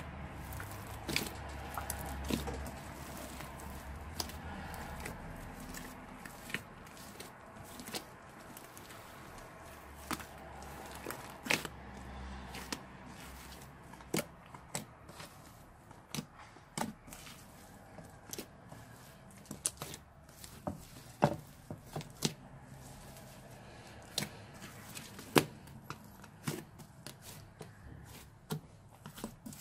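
Slime being kneaded and folded by hand, squishing, with scattered sharp pops and clicks at irregular intervals.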